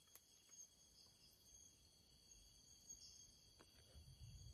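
Faint chorus of night insects (crickets) trilling steadily in high, thin tones; otherwise near silence.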